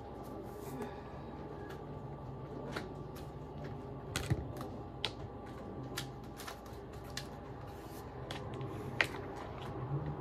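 Boxed card decks being picked up, moved and set down on a wooden desk: scattered light clicks and taps, the sharpest about nine seconds in, over a steady faint hum.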